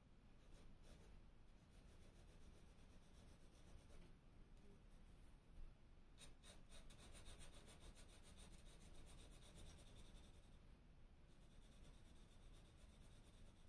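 Faint scratching of a pencil on drawing paper, shading in quick short strokes. The strokes stop briefly about four seconds in and again near the ten-second mark.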